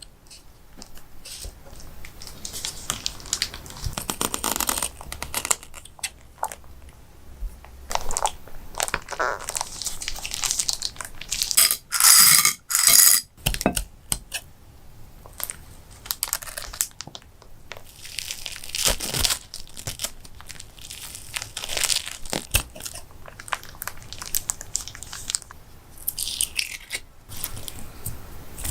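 Slime being squeezed and worked by hand: a busy run of small crackles and sticky rustles, loudest in a few bursts about halfway through.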